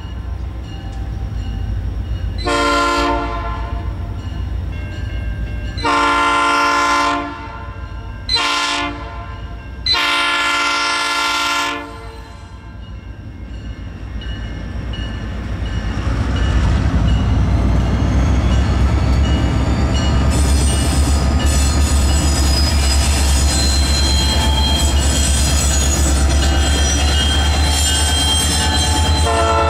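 Norfolk Southern freight train's air horn sounding the grade-crossing signal of four blasts, roughly long, long, short, long. Then the low, steady rumble of the EMD diesel locomotive lashup builds from about halfway as the engines draw alongside, with thin high-pitched squealing over it.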